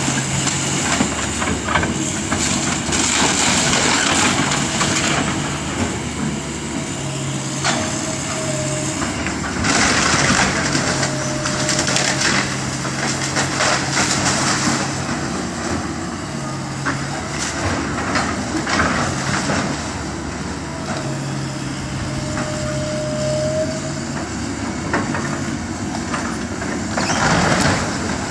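Komatsu hydraulic excavator's diesel engine running, its note rising and falling with load, as the machine tears into a wooden building: repeated cracking and crashing of splintering timber and falling debris, loudest about ten to fourteen seconds in and again near the end.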